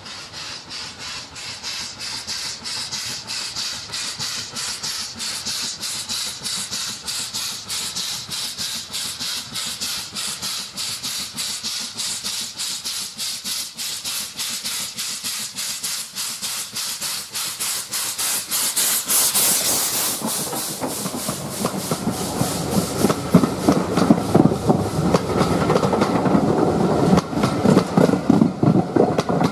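LMS Stanier 'Black Five' two-cylinder 4-6-0 steam locomotive under steam, its exhaust chuffing in quick, even beats that grow louder as it approaches and passes about twenty seconds in. The coaches follow close by, rumbling, their wheels clicking over the rail joints.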